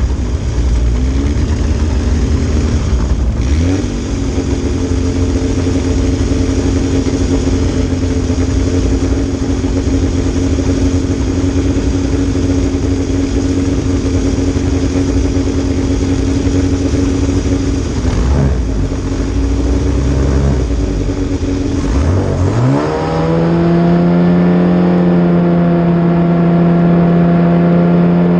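Classic Formula Ford's 1.6-litre Ford Kent four-cylinder engine heard from the cockpit, idling on the starting grid with a few brief throttle blips. About 22 seconds in it is revved up and held at steady high revs, ready for the start.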